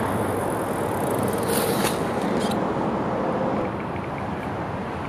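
Steady road traffic noise, with a few brief clicks about one and a half to two and a half seconds in.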